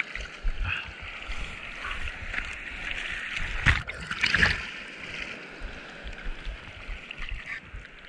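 Ocean surf washing around a surfboard at water level, a steady rush of whitewater. About halfway through, water splashes hard over the camera twice in quick succession.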